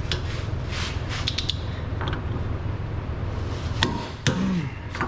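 Torque wrench tightening the bolts of a new rear hub bearing assembly, giving a series of sharp metallic clicks, the loudest two near the end, over a steady low hum.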